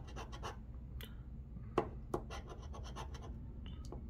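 Metal scratching tool scraping the latex coating off a scratch-off lottery ticket in quick, short, repeated strokes, with a few sharper clicks as the tool catches.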